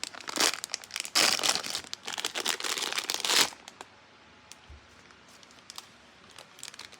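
Blind-bag packaging being crinkled and torn open by hand, a dense, loud rustling that stops about three and a half seconds in, followed by a few faint light ticks.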